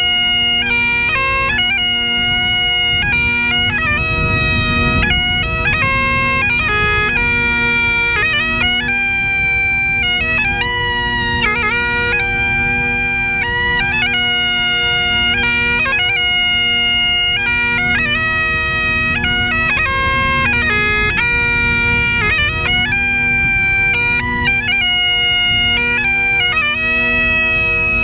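Great Highland bagpipes playing a melody on the chanter, with quick grace notes between the notes, over the steady drones.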